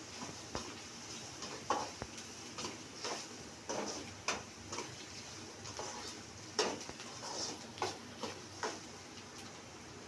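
A utensil stirring onions frying in a pan, knocking and scraping against the pan in irregular strokes about once or twice a second.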